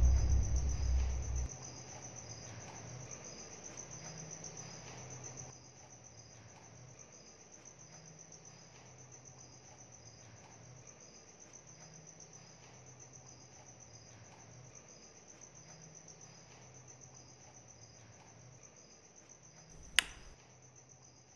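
Crickets chirping in a steady high trill, with a faint low pulse repeating every couple of seconds. A loud boom's rumble dies away in the first second or so, and a single sharp click of a light switch comes near the end.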